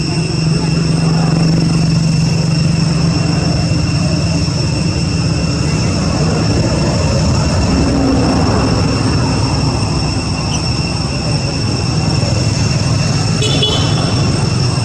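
Steady, loud rumbling noise with two constant high whines over it and a brief rattle near the end.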